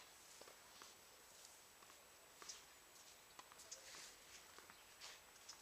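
Near silence with faint, scattered footsteps and shoe scuffs on a tennis court, and a few small taps.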